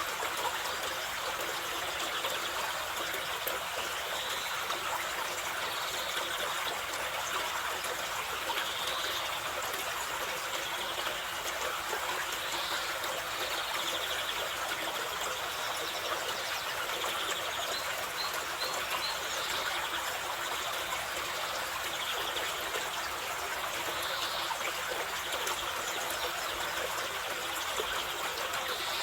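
A mountain river rushes and splashes steadily over rocks. Short chirps from a bird recur every couple of seconds above the water noise.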